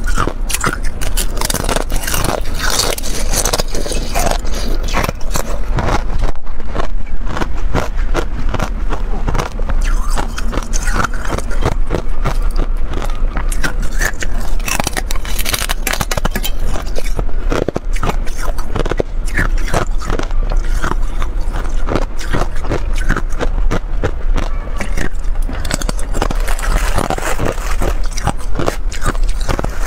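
Thin sheets of clear ice being bitten and crunched, close-miked: a dense, continuous run of sharp cracks and crackling crunches.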